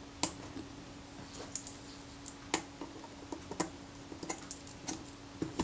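Small irregular clicks and taps of metal tweezers and a jeweller's screwdriver working tiny screws on a camera's metal top cover, with a faint steady hum.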